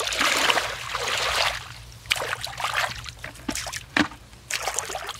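Splashing as bare feet kick and wade through shallow muddy water, loudest over the first second and a half, then smaller splashes and drips as hands grope in the water.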